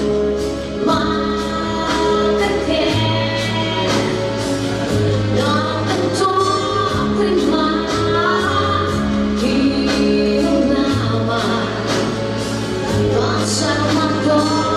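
Live pop song: a woman singing over a backing track with a steady beat and a bass line.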